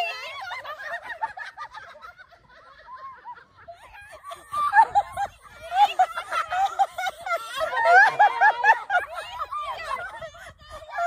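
Women laughing hard together. The laughter dies down briefly, then breaks out again about four seconds in as several overlapping fits of laughter.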